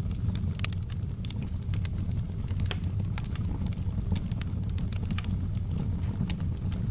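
Wood fire burning, with frequent sharp crackles and pops over a steady low rumble.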